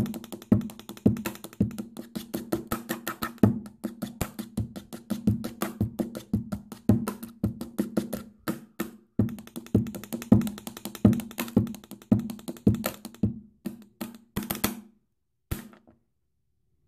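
Pen tapping beat: two markers drummed fast on a tabletop, sharp clicks over deeper knocks in a steady rhythm. It stops about fifteen seconds in, with one last single tap.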